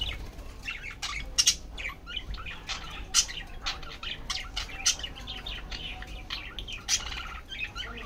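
Budgerigars chirping in a rapid run of short, high calls, with a flutter of wings near the start.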